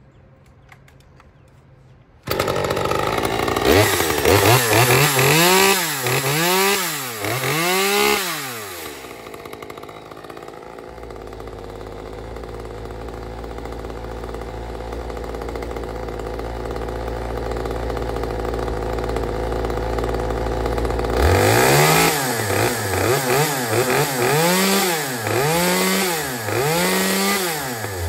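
RedMax GZ360 two-stroke chainsaw starting about two seconds in, then revved in a quick series of throttle blips. It settles to a steady idle for about ten seconds, then is blipped up and down again near the end.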